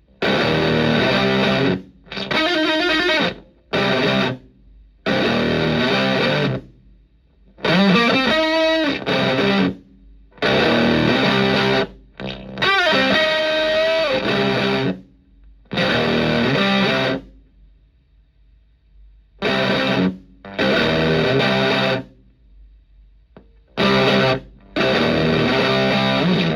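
Electric guitar through a Tone Bender MKI-style fuzz pedal and clean tube amp, playing heavily fuzzed drop-C chords and riffs in short bursts of one to two seconds. Each burst cuts off abruptly into silence: the fuzz gating and zipping out at the end of the notes. A few notes bend or slide in pitch.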